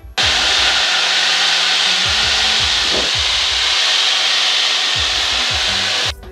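Loud, steady rushing of air in a small aerobatic aircraft's cockpit during a manoeuvre, with a hiss that starts suddenly and cuts off suddenly near the end.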